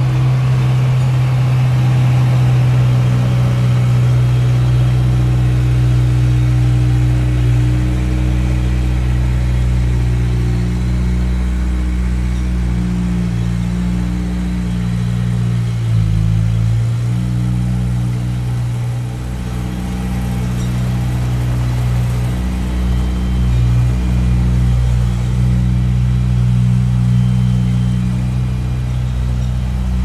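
Small crawler bulldozer's diesel engine running steadily under load as the blade pushes a heap of loose dirt; the engine note dips briefly around the middle, then steadies again.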